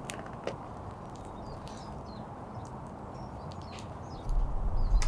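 Newly lit campfire crackling, with scattered sharp pops and snaps over a steady low hiss. A low rumble comes in near the end.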